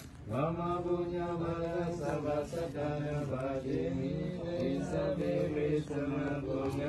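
Buddhist devotional chanting: voices holding long, steady notes that step up and down between a few pitches, with a brief pause for breath right at the start.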